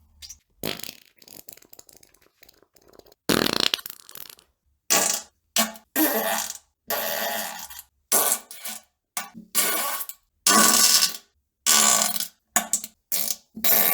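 A rapid series of farts: more than a dozen separate blasts of varying length, from short pops to about a second long, with brief silences between. Several have a low buzzing tone.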